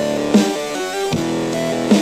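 Music played through the Eggel Fit 2 Bluetooth speaker for a sound test: a plucked, stepping melody over a steady drum beat.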